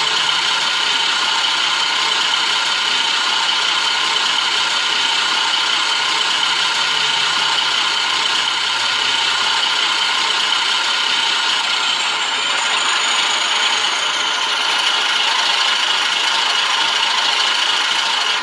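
Digital sound decoder playing a recorded Alco 539T six-cylinder diesel switcher engine through a small loudspeaker: a steady, dense mechanical clatter. A low hum beneath it fades out about halfway through.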